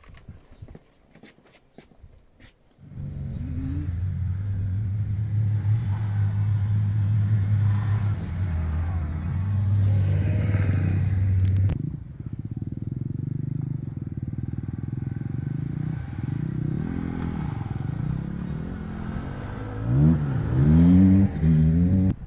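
A Dacia Duster 4x4's engine comes in about three seconds in and runs steadily under load. Near the end the revs rise and fall several times, loudest in the last couple of seconds.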